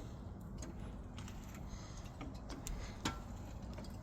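Scattered light clicks and taps from raising the car on a jack and setting its supports, irregular and a few per second at most, the sharpest about three seconds in, over a steady low hum.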